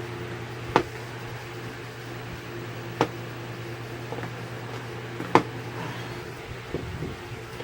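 Three sharp clicks a couple of seconds apart, with a few fainter knocks near the end, from a plastic wall clock being handled while it is set and hung, over a steady low hum.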